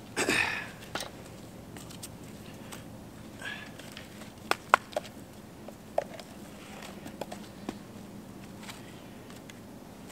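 Gear being handled and feet shifting in snow: a short crunch at the start, then scattered sharp clicks, the loudest two in quick succession about four and a half seconds in.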